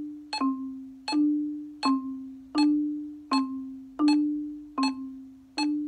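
Marimba struck with yarn mallets in steady alternating strokes, about eight single low notes, one every three-quarters of a second. Each note rings on until the next stroke, and the pitch shifts slightly from stroke to stroke.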